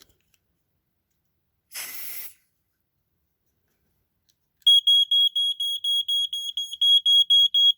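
A short hiss of Smoke Sabre aerosol test smoke sprayed at a late-1980s Canadian piezo smoke alarm. A couple of seconds later the alarm goes off from the test smoke: a loud high tone pulsing rapidly, about six beeps a second.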